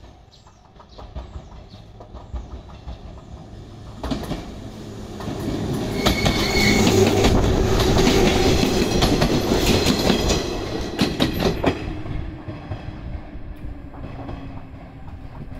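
A yellow electric train pulling into a station and passing close by. Its wheels clack over the rail joints and points, growing loud in the middle as it goes past and then fading as it runs on along the platform.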